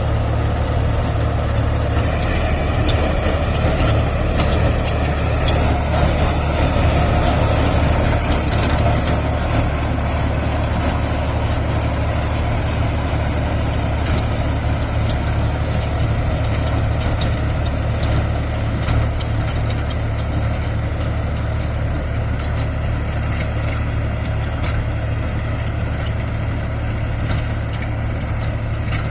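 Massey Ferguson 254 Dynasmart tractor's diesel engine running steadily, with a strong low drone.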